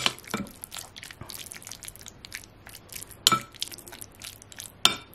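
A metal spoon stirs marinated pork slices in a glass bowl: soft wet stirring with a few sharp clinks of the spoon against the glass, the loudest around three seconds in and near the end.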